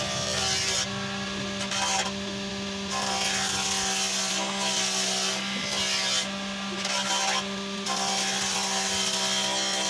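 Type 442A multifunction woodworking machine running, its planer cutter head planing the side of a heavy timber door-frame beam as it is pushed across. A steady motor hum, with the hissing cutting noise coming and going as the beam passes over the blades.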